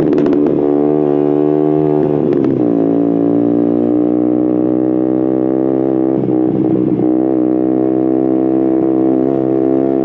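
KTM Duke 125's single-cylinder engine running through an Akrapovic silencer with a GPR decat link pipe, holding a fairly steady note while riding. Short rough, crackling patches come about half a second and two and a half seconds in, and the note wobbles briefly around six to seven seconds in.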